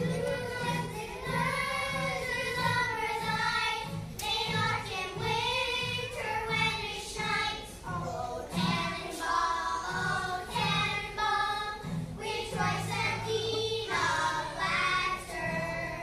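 A group of young girls singing a Christmas song together, with a music accompaniment underneath.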